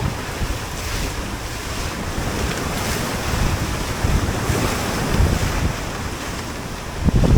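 Toyota Land Cruiser driving over a rough forest trail: a steady, loud rushing noise of the vehicle, tyres and wind on the microphone, with low thumps as it jolts over bumps around the middle and near the end.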